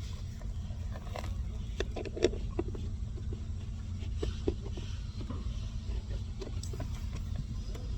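Scattered clicks and light knocks of a replacement HVAC blower motor being handled and fitted into place, over a steady low rumble.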